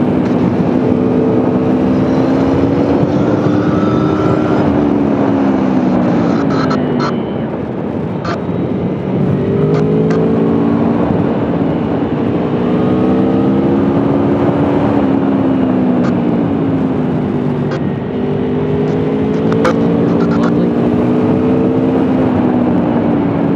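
Aprilia Tuono V4 1100's V4 engine in low gears through tight bends, its note rising under acceleration and falling as it slows, three times over, with wind rush over the rider's microphone.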